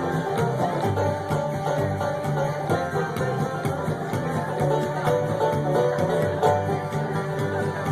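Live bluegrass band playing an instrumental break, with banjo picking over guitar and a steady low bass line.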